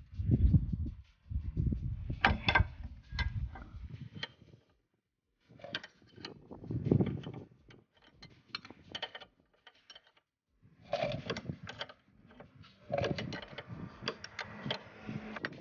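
Metal hand tools on a Honda Civic's lower control arm bolt: a combination wrench clinking and rattling against the bolt and the arm in irregular bursts, with dull knocks in the first few seconds and a brief pause before a last flurry of clinks.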